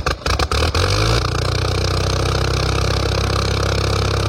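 Aircraft engine starting: a run of separate uneven firing bangs, then about a second in it catches and settles into steady, evenly pulsing running.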